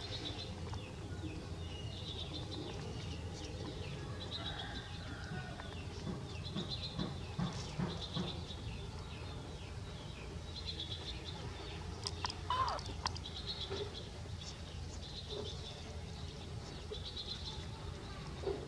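Animal calls: short high chirps repeating every second or two over a steady low rumble, with one louder gliding call about twelve seconds in.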